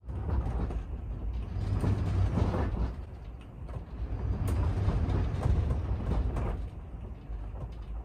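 Gusts of 20 to 30 mph wind buffeting an RV, heard from inside as a low rumble that swells, eases about three seconds in, swells again and dies down near the end, with a few light clicks from the RV body.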